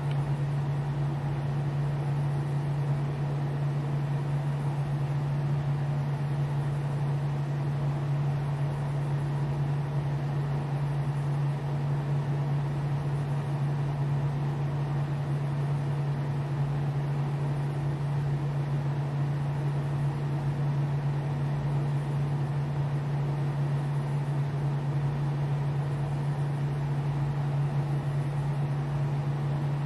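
Steady low hum of a small electric motor over a faint hiss, unchanging throughout, from the motorized turntable turning the tray.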